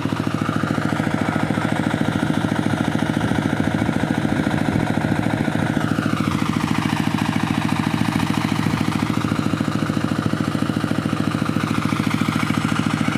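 Engine idling steadily with a rapid, even chugging; a higher tone above it drops in pitch about six seconds in.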